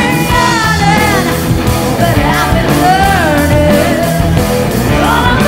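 Live rock band playing, with a lead line that slides and bends in pitch over the bass and drums.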